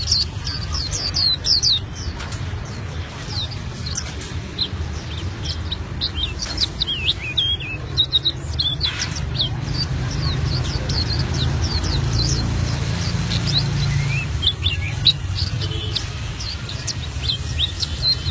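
Albino pleci (white-eye) singing a long, unbroken run of rapid high chirps and quick whistled sweeps, the continuous rolling song prized in singing-bird keeping. A steady low hum runs underneath.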